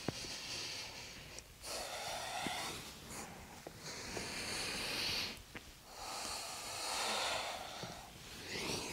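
A woman breathing slowly and audibly during a yoga flow: about five long, even breaths, each lasting a second or two, with short pauses between them.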